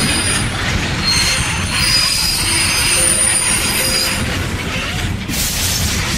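Train running with its steel wheels squealing on the rails over a heavy rumble, then a sudden burst of noise about five seconds in.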